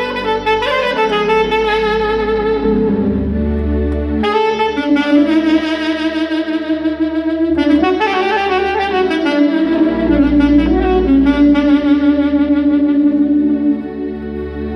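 Saxophone playing a melody of long held notes with vibrato, over a low bass accompaniment.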